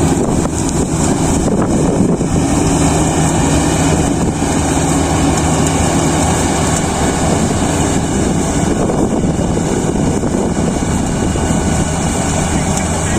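Kubota DC-35 combine harvester running steadily under load while harvesting rice: a continuous engine and machinery drone with a high hiss over it.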